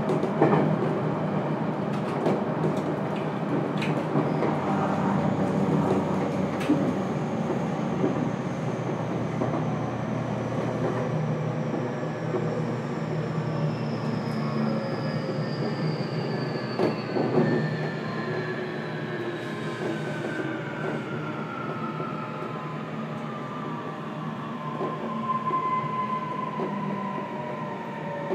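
Running noise heard inside an 811 series electric train's motor car, with the traction motor whine falling steadily in pitch as the train slows. A few sharp knocks come from the wheels and track.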